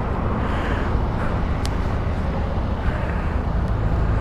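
Steady low rumble of an urban street, distant traffic with some wind on the microphone, and one brief sharp click partway through.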